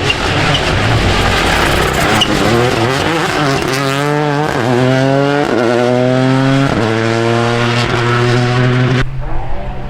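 Rally car passing at full throttle: a loud noisy rush at first, then the engine note climbs through the gears with three quick upshifts about a second apart. The noise drops away suddenly near the end.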